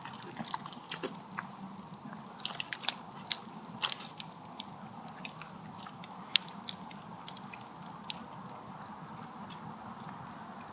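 Chewing and biting on campfire-cooked steak: a run of small crisp clicks over the first seven seconds, then only a faint steady background.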